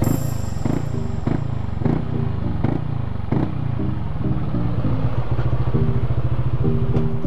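Yamaha Aerox scooter's single-cylinder engine running steadily at rest, a low exhaust note that is soft and not very loud.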